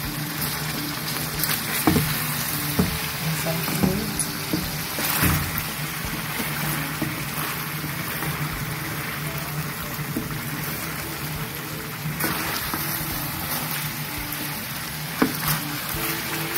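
Chicken pieces frying in hot oil with onions, sizzling steadily as the chicken releases its oil and juices, while a wooden spoon turns them and knocks against the pan a few times. Soft background music with held notes plays underneath.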